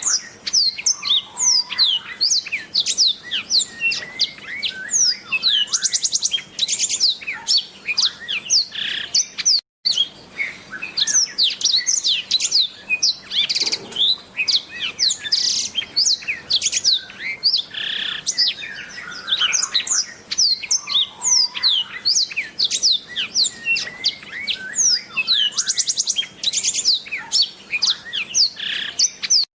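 Black-throated canary (blackthroat) singing continuously: a fast, unbroken string of high, downward-sliding whistled notes mixed with short buzzy trills. The song breaks off for an instant just before ten seconds in.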